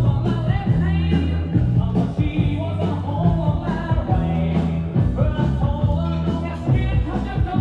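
Rock and roll music with singing, a steady bass line and a regular drum beat.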